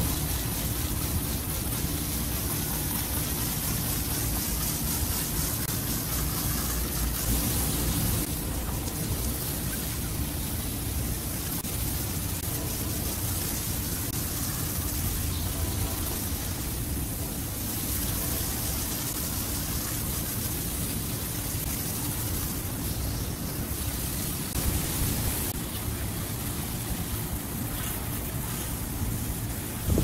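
Water hissing steadily from a hose spray nozzle as it rinses dirt out of a rooftop AC unit's condenser coil, over a low steady hum.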